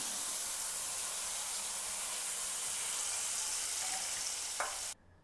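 Hot tempering oil with curry leaves and dried red chillies sizzling as it is poured onto a buttermilk gravy: a steady hiss that cuts off suddenly near the end.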